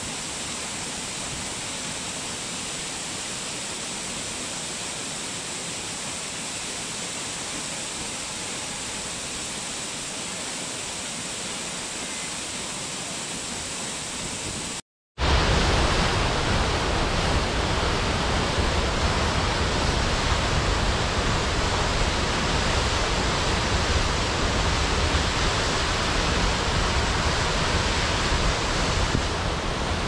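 Steady rushing of falling water from waterfalls. About halfway through there is a brief silent break, after which a second falls comes in louder and deeper.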